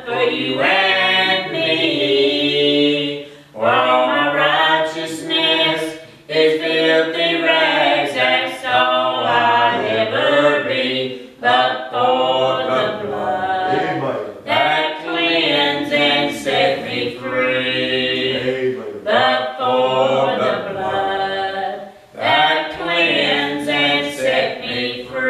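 A man and a woman singing a gospel song together, their voices carrying the melody in phrases a few seconds long with short breaks between.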